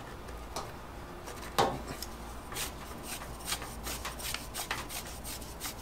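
The metal barrel of a LockNLube LNL151 lever grease gun being handled and screwed onto the gun's head. There is a knock about a second and a half in, then a run of small scrapes and clicks as the threads are turned.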